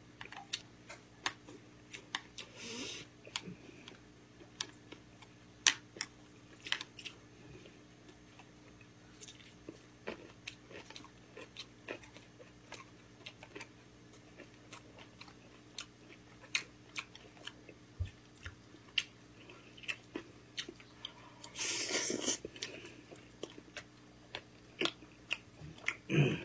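Close-up chewing of gamjatang, the Korean pork-bone stew: many short wet clicks and smacks from a mouth eating, with a louder noisy stretch of about a second near the end. A faint steady low hum runs underneath.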